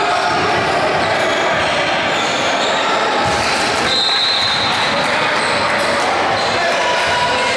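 Basketball gym during a game: a basketball bouncing on the hardwood floor, with chatter from players and spectators over the hall's echo. A short high whistle sounds about four seconds in.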